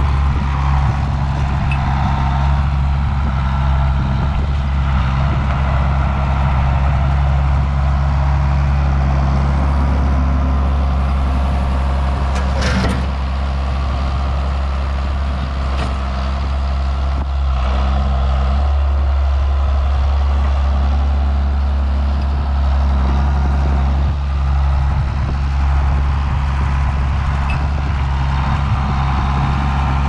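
John Deere 7610 tractor's six-cylinder diesel engine running steadily while it pushes snow with its loader bucket, with a sharp knock about thirteen seconds in.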